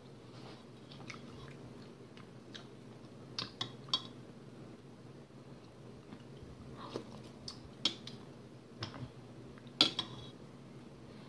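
A metal spoon clinking against a soup bowl as soup is spooned up and eaten, with soft eating sounds between. The clinks come in small groups, a few about three and a half seconds in and more from about seven seconds, the loudest near the end.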